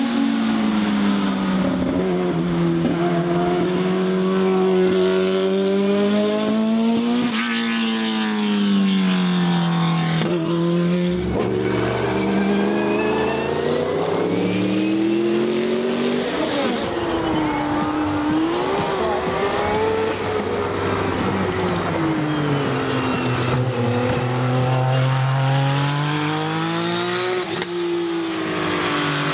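Turbocharged race car engine running hard, its pitch rising and falling again and again as it accelerates, lifts and changes gear.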